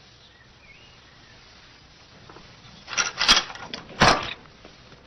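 Puzzle-box latch and door clattering open, two loud knocking clatters about a second apart near the end, after a quiet stretch.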